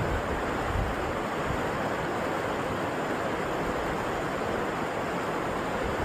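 Shallow river rapids rushing over rocks: a steady noise of running water. A light, uneven wind rumble on the microphone sits underneath.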